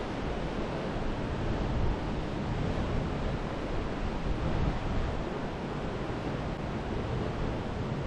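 Wind buffeting the microphone: a steady, rumbling rush of noise that swells and eases.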